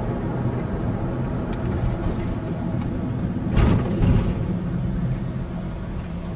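Steady road and engine rumble heard from inside a moving car, with a brief louder burst of noise a little past halfway.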